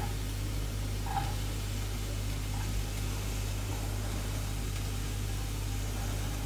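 Chopped peppers sizzling in hot olive oil in a frying pan, a steady hiss.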